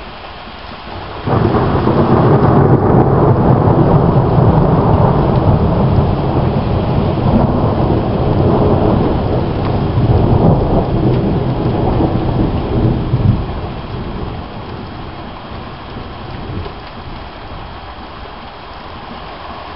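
A clap of thunder breaks suddenly about a second in and rolls on as a long, loud rumble for some twelve seconds before fading, over the steady hiss of heavy rain.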